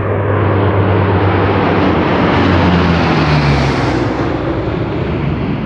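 Airplane passing overhead, its engine drone swelling to a peak a little past the middle and then fading.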